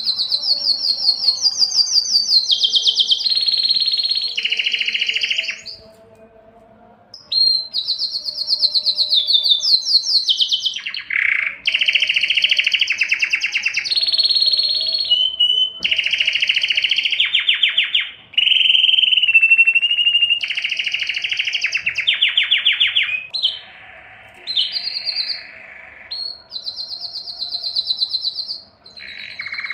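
Male canary singing a long song of fast trills, each roll of repeated notes held for one to two seconds before it switches to another pitch. There is a short break about six seconds in and a quieter passage near the end. It is a breeding-season courtship song.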